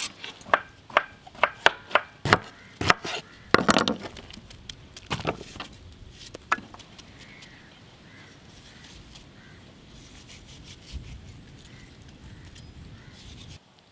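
Knife chopping pineapple on a wooden cutting board: a run of sharp knocks, about two a second, then a few more strikes before it goes quiet.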